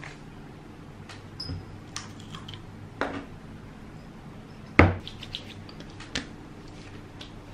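Skincare bottles being picked up and set down on a vanity table: a series of light clicks and knocks, the loudest about five seconds in, over a low steady hum.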